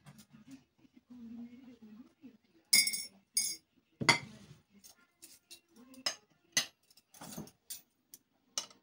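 Glass tea glasses clinking as they are set down on the table: a string of sharp clinks, the loudest pair about three seconds in, then a heavier knock and scattered lighter clinks.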